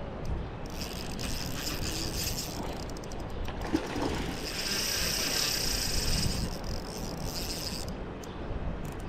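Fishing reel winding in line: a fast ratcheting whir that starts about half a second in and stops near the end, with a single knock near the middle, over a steady low rumble.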